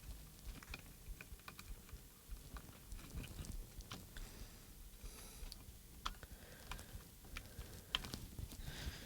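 Faint, scattered small clicks and ticks of fingers handling thin wires and small plastic parts inside an opened radio-control transmitter.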